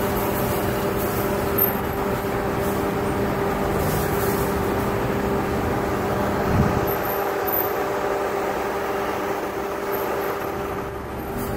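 Steady engine hum of street traffic holding one low pitch throughout, with a brief knock about six and a half seconds in.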